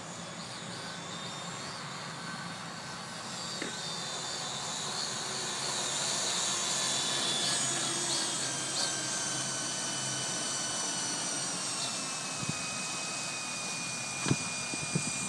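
MJX F45 RC helicopter's electric motor whining and rotor blades whirring as it hovers low. The whine grows louder about halfway through and sinks a little in pitch near the end, with a light knock near the end.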